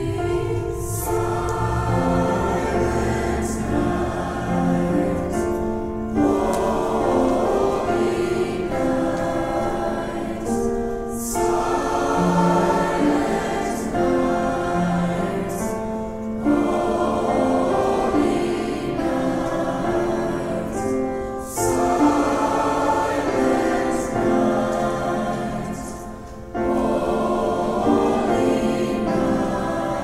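High school choir singing a Christmas carol, in phrases of about five seconds with short breaks between them.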